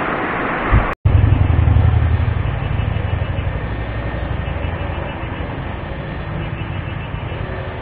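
Rushing water of mountain-stream rapids for about a second. After an abrupt cut comes a steady low rumble with a faint hum, which slowly dies away.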